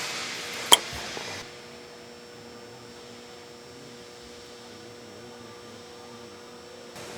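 A short hiss with one sharp click under a second in, then a steady electrical hum.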